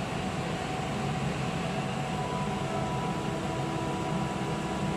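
Steady background hum and hiss of a machine, such as a fan or ventilation unit, with no distinct events.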